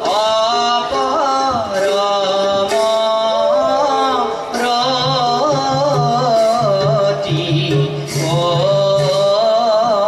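A male voice sings a Borgeet in Raga Ahir in slow, ornamented phrases that glide between notes, over a steady held drone. Small hand cymbals are struck at intervals.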